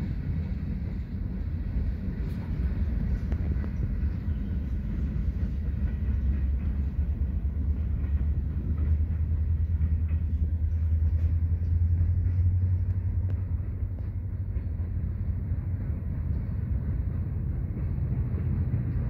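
A freight train of refrigerated boxcars rolling through a rail yard, a steady low rumble that swells in the middle and eases toward the end, with faint light ticks above it.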